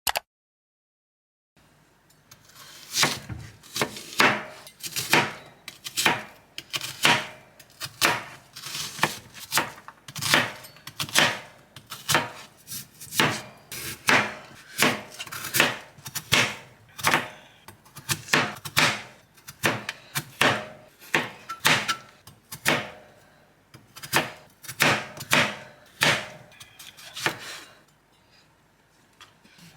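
A knife chopping food on a cutting board, steady strokes at about two a second that start about two seconds in and stop shortly before the end.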